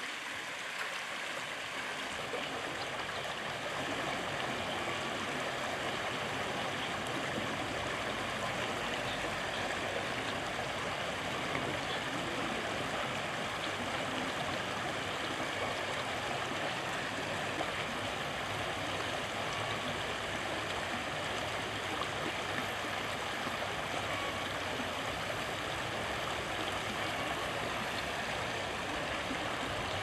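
Steady rushing of shallow river water flowing over the riverbed, with no break or change.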